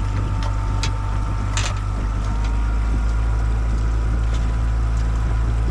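Boat motor running steadily at trolling speed, a constant low drone with a faint steady whine above it. A few light knocks, the clearest about one and a half seconds in.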